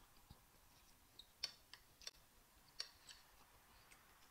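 Faint close-miked eating sounds: scattered small clicks of a metal spoon on a plate and at the mouth, the two sharpest about a second and a half in and near three seconds.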